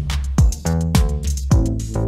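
Background music: an upbeat funky track with a drum-machine beat, bass and pitched chords.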